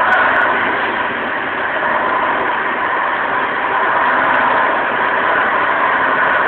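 Corded walk-behind floor machine running steadily as it is pushed over a concrete floor: a constant, unchanging mechanical whir.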